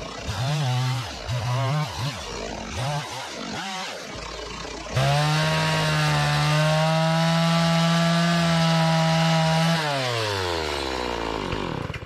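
Stihl two-stroke chainsaw revving in short throttle blips for the first few seconds, then held at full throttle for about five seconds while cutting into a wooden bowl blank. It then winds down and stops near the end.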